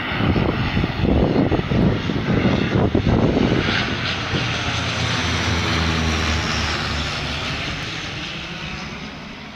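Twin-engine turboprop airliner flying low overhead, its engine and propeller drone dropping in pitch as it passes, then fading away over the last few seconds.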